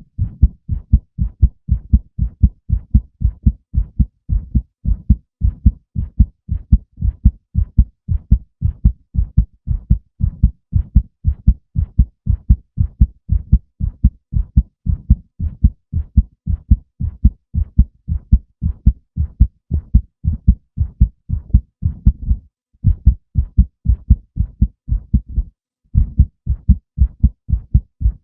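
Human heartbeat: a steady, quick rhythm of low double beats (lub-dub). It cuts out briefly twice in the last third.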